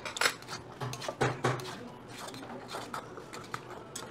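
Metal chopsticks and a spoon clinking and scraping against a stainless steel bowl as cold noodles are mixed: a run of short, irregular clicks.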